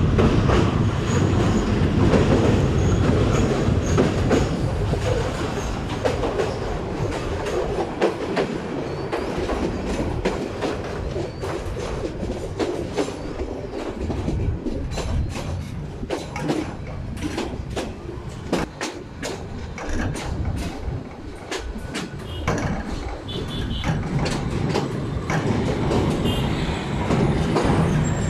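A train running along the rails, heard from aboard: a steady rumble and rush of air, with rapid clacking of the wheels over the rail joints through the middle stretch, and the rumble growing louder again near the end.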